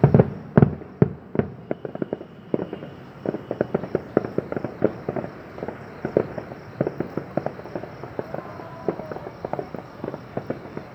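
Fireworks display: a dense, irregular run of sharp bangs and pops, several a second, loudest in the first second or so. A faint thin whistle sounds briefly a couple of seconds in.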